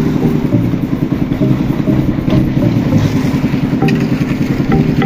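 Engine of a concrete mixer and hoist running steadily with a low pulsing rumble. A few sharp knocks come in near the end.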